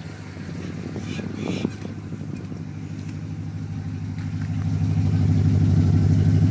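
2002 Holden VY SS Commodore's 5.7-litre Chev V8 idling steadily just after start-up. Its sound grows louder about four to five seconds in, with no change in pitch.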